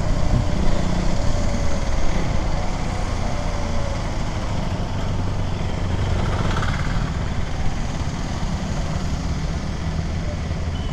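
KTM Duke 390's single-cylinder engine running at low, steady revs.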